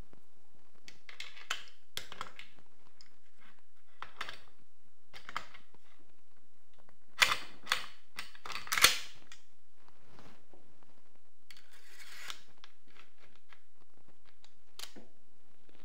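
Metal clicks and clacks of RPK light machine gun parts being handled during assembly. There is a cluster of sharp clacks about seven to nine seconds in and a short scraping slide around twelve seconds.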